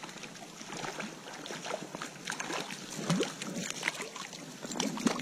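Stream water running, with scattered small splashes and gurgles.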